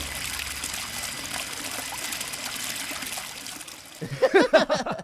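Water trickling from a clear plastic tube onto a model crop bed, a steady soft hiss. Near the end a short, high-pitched voice cuts in over it.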